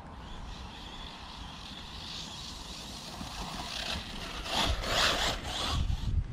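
Arrma Typhon 6S RC buggy driving across grass: a faint high motor whine, then a louder rush of tyres tearing through the grass about four and a half seconds in, lasting about a second.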